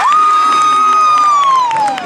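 High school basketball crowd cheering and clapping, with one high voice holding a long shout that slides down in pitch near the end.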